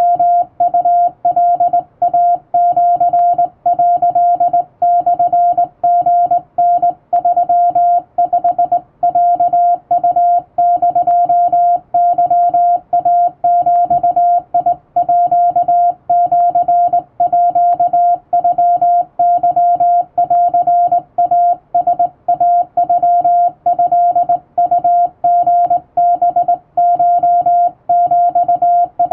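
Morse code tone, a steady beep keyed on and off by hand on a straight (up-and-down) telegraph key, sending Japanese Wabun code in an unbroken run of dots and dashes.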